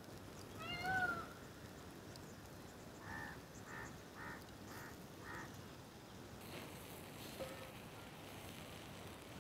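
An animal call: one short cry that rises and falls in pitch about a second in, then five short, higher chirps about half a second apart a few seconds later.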